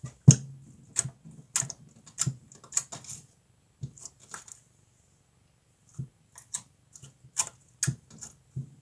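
Fingers pressing, poking and pulling sticky slime: irregular sharp clicks and pops, about two a second, with a short pause a little past the middle.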